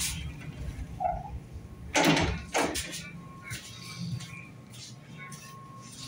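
Interior door of an ED4M electric train carriage shutting with a loud knock about two seconds in, followed by a second, smaller knock, over a steady low hum inside the carriage.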